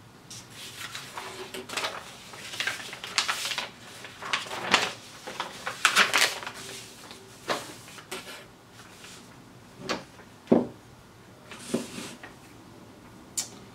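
Paper instruction leaflet rustling as it is handled and folded, followed by a few separate short knocks and clicks as a helping-hands stand and other items are moved and set down on a cutting mat.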